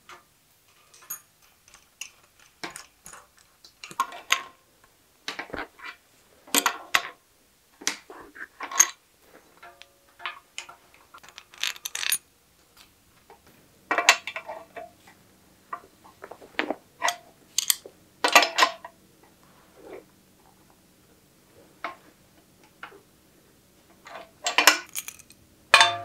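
Small metal parts of a Cane Creek bicycle headset clicking and clinking against each other and the head tube as they are handled and fitted: a string of sharp, irregular clinks, some ringing briefly.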